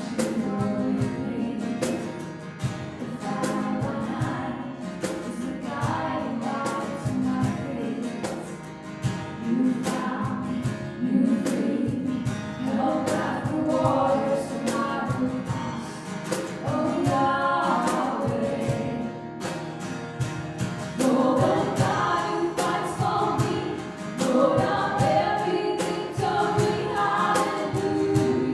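Live contemporary worship song: two women singing the melody together over a strummed acoustic guitar, with a steady beat played on a cajon.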